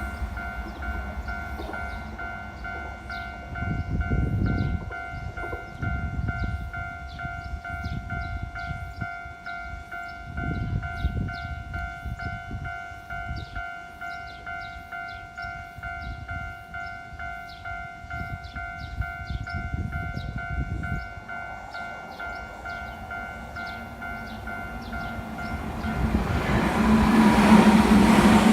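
A Japanese railroad crossing's warning bell rings steadily while Keio Inokashira Line trains rumble past in swells. The bell stops about three quarters of the way through, and near the end a louder rumble builds as another train comes through.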